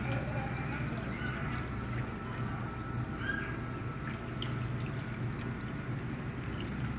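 Water trickling and dripping from a kitchen tap into a sink piled with dishes, over a low steady hum.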